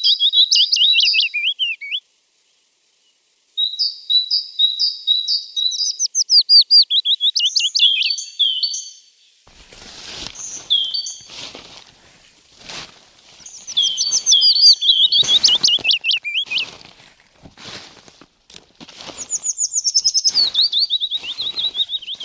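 A songbird singing repeated short phrases of rapid trilled notes stepping down in pitch, each about two seconds long. From about halfway through, short knocks come irregularly about once a second under the song.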